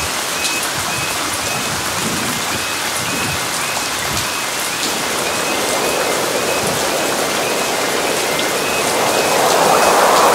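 Steady rain falling on the ground and microphone, with a level crossing's warning alarm beeping faintly and regularly behind it. A louder rushing swell builds over the last few seconds.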